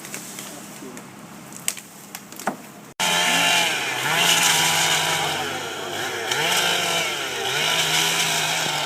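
A few sharp clicks, then an abrupt cut about three seconds in to a loud two-stroke chainsaw running at high revs, its pitch dipping and recovering several times.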